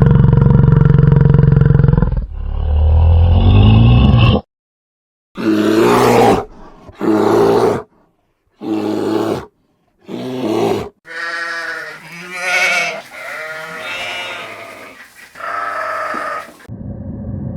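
A string of separate animal calls cut together: a loud, low call lasting about four seconds, a short silence, four short calls with pauses between, then several wavering, pitched calls.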